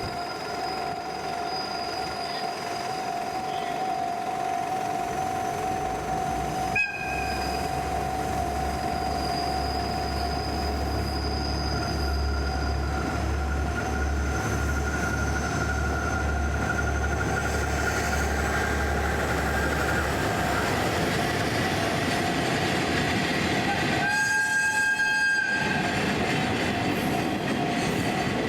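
Freight train running on a cement works' private rail line, its wheels squealing in a steady metallic whine. A deep rumble comes in about a quarter of the way through, and a short horn blast sounds near the end.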